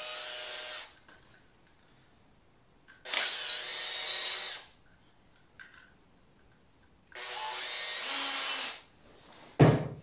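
Handheld cordless drill run in three short bursts of about a second and a half each, its motor whining. A single loud thump follows near the end.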